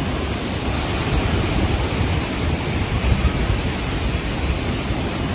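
Steady rushing noise of a storm's wind and rain, with low rumble on the microphone.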